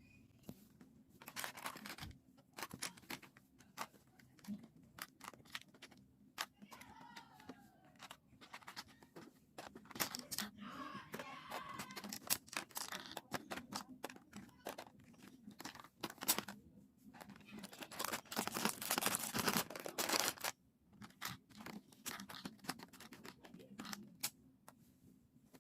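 Packaging being handled and pulled apart: irregular clicks, crinkling and tearing of plastic and cardboard as fasteners are worked out of a gift box, with louder rustling bursts in the middle and near the end.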